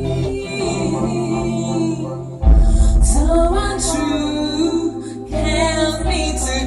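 A female voice singing a song over a backing track, with low bass notes coming in strongly about two and a half seconds in.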